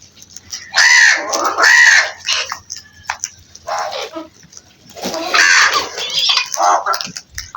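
Crows cawing in harsh, raspy calls, several birds calling over one another. Two loud caws come about a second in, then scattered shorter calls, and a busy run of caws in the second half.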